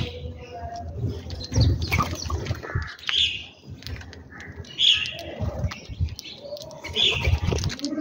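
House sparrows chirping while they feed, a short chirp every second or two. Between the chirps come low fluttering thumps of wingbeats.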